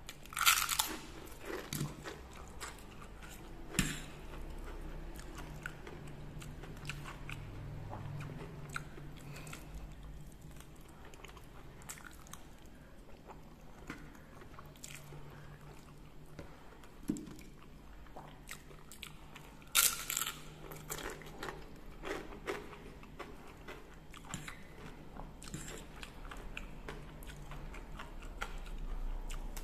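A person eating, heard up close: loud crunches from biting into crisp seroja crackers about half a second in and again about two-thirds of the way through, with quieter chewing of fried instant noodles in between.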